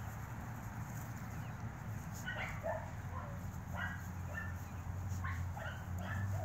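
Five-week-old Norwegian Buhund puppies giving short, high-pitched yips and whimpers. The calls begin about two seconds in and come several times in quick succession.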